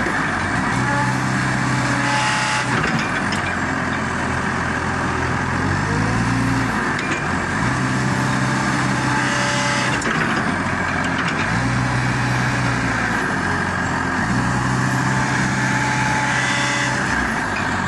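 A pump running continuously, with a low hum that shifts in pitch every few seconds and a short hiss about every seven seconds.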